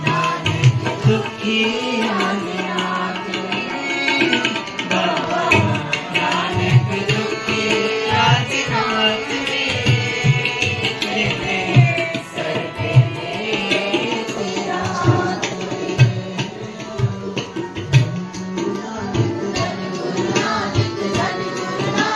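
Sikh devotional kirtan: a man singing a Gurbani hymn to his own harmonium accompaniment, with a hand drum keeping a steady beat of low strokes.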